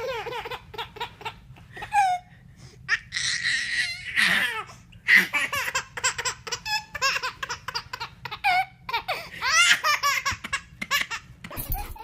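A small child laughing in repeated high-pitched bursts of giggles and belly laughs, with a breathier squealing stretch a few seconds in.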